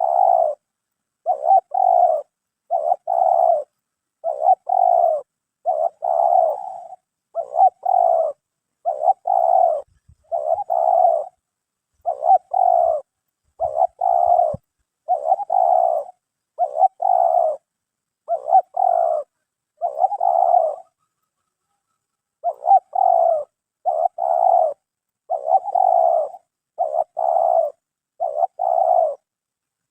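Spotted dove (terkukur) cooing in a steady series of phrases, about one every one and a half seconds, with a short pause a little past two-thirds through.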